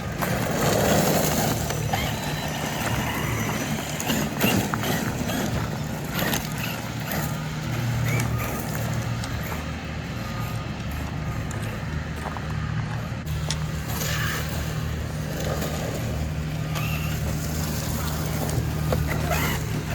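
Traxxas Sledge RC monster truck being driven: tyre and drivetrain noise with a steady low hum and scattered sharp knocks from bumps and landings.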